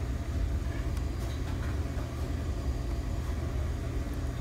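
Steady low mechanical hum and rumble, even in level throughout.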